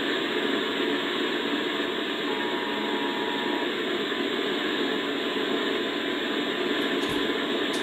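Steady hiss of static on a broadcast emergency alert relay, in the slot where the EAS attention signal comes before the test message. The alert's two-note tone is heard only faintly beneath the static for about a second, near the start.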